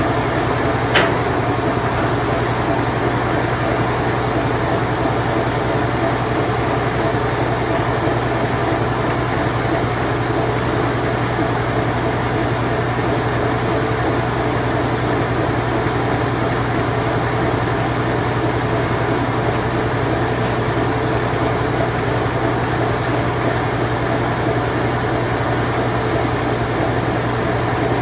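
Late-1980s Whirlpool Imperial Clean Touch washing machine in its spin cycle: a steady mechanical hum with an even whooshing noise over it. A single short click about a second in.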